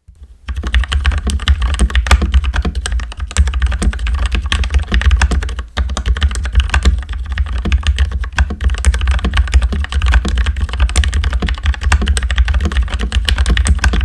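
Fast, continuous typing on a Royal Kludge RK68 65% mechanical keyboard with hot-swap brown switches whose stems have been lubed. It is a typing sound test of the modded board. Many keystrokes a second start about half a second in, with a brief pause near the middle.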